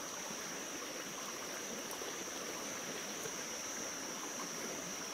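Steady rush of a shallow rocky stream, with a continuous high-pitched insect drone over it.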